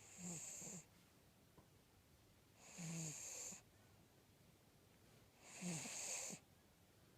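American cocker spaniel snoring in its sleep: three snores, each under a second long, coming roughly every two and a half to three seconds.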